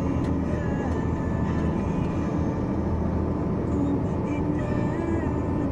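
Steady low rumble of a vehicle driving through street floodwater, with the water washing around it.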